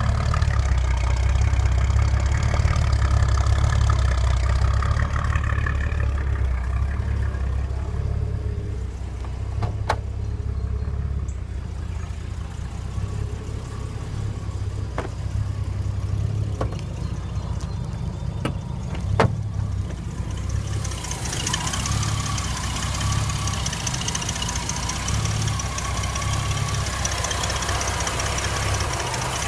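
Car engine idling steadily with a deep, even exhaust rumble, running okay. A few light clicks come in the middle, and near the end the sound shifts to the engine bay, where a brighter whir and hiss join the idle.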